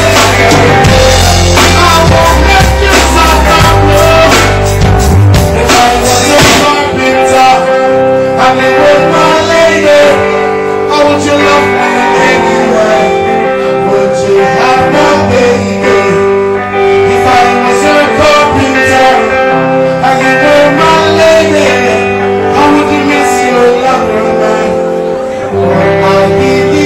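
Live reggae band playing, with a singer, electric guitar and bass; the deep bass line drops out about five seconds in.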